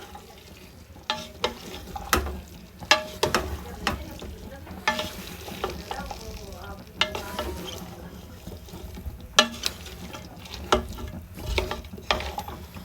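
Food sizzling in a pan while a utensil stirs and scrapes it, with irregular sharp clinks against the pan, some ringing briefly.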